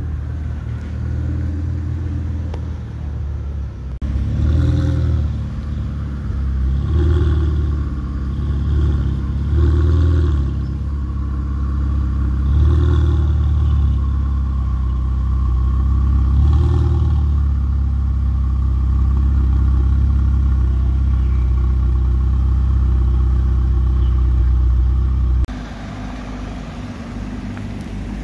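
Ferrari 488 Pista's twin-turbo V8 idling with several sharp throttle blips, about five revs in quick succession, then holding a steady high idle. Near the end the sound drops to a quieter engine running.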